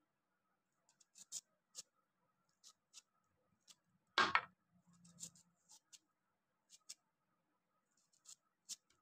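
Kitchen knife slicing through a raw onion into rounds: a series of faint, crisp snicks as the blade cuts through the layers, with one louder knock about four seconds in.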